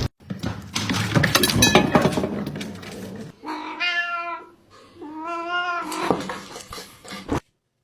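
A domestic cat meowing twice, each call about a second long, after a few seconds of rustling and clattering knocks.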